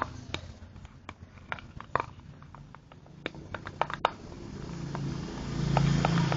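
Irregular small clicks and taps of a metal spoon working thick, sticky slime mixture in a bowl, with a low rumble building near the end.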